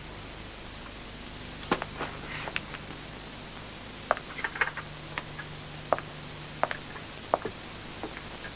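Scattered light clicks and clinks of china cups, saucers and spoons being handled on a table, over steady tape hiss and a faint low hum.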